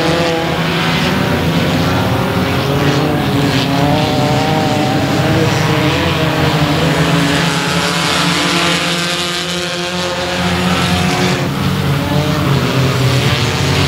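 Several front-wheel-drive four-cylinder Ecostock race cars racing in a pack, their engines revving up and down with several pitches overlapping.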